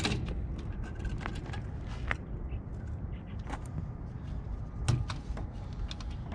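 Scattered clicks, clinks and knocks of a bike-to-trailer tow hitch being handled where a folding bike couples to a sailboat's bow, the loudest a knock about five seconds in, over a steady low rumble.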